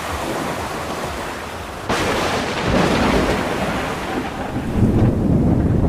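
Steady rain, then a sudden thunderclap about two seconds in that rolls on as a deep rumble, loudest near the end.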